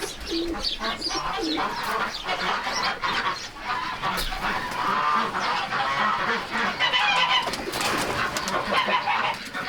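A chorus of farm poultry calling over one another: hens clucking among other fowl calls, in many short overlapping calls.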